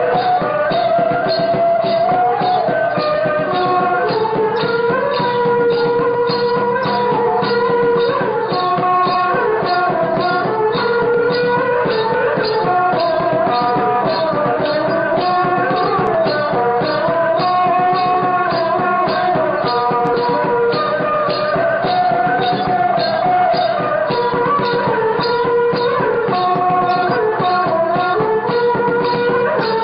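Ensemble music with a wavering melody carried over a steady shaken-rattle beat of about two strokes a second.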